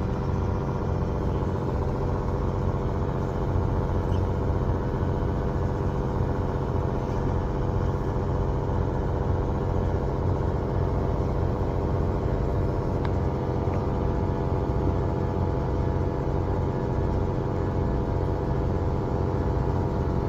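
An engine idling steadily: a low, even drone whose pitch does not change.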